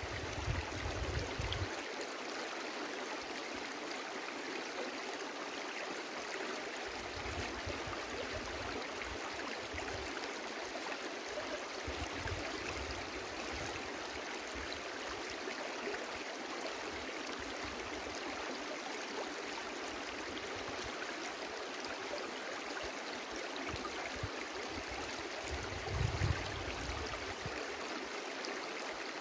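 A brook running steadily, an even rushing of water with a few low rumbles now and then, briefly louder near the end.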